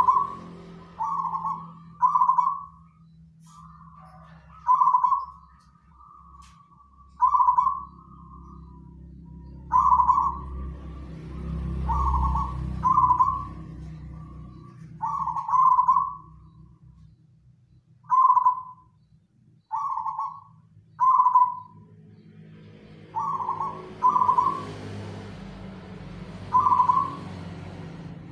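Zebra dove (perkutut) cooing: a series of short, clear coos, some single and some in quick pairs, repeated every second or two, with a steady low hum underneath.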